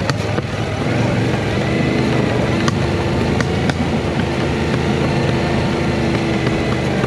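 Yamaha Ténéré 700's parallel-twin engine running at a steady pace while riding a gravel track, its tone holding level, with a few sharp ticks a few seconds in.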